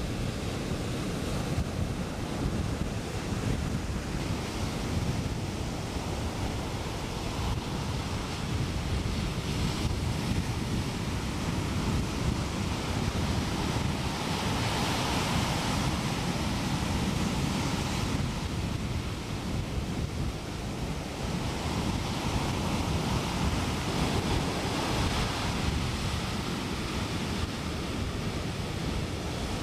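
Ocean surf washing onto a sandy beach, a steady rush that swells every few seconds as waves break, with wind rumbling on the microphone.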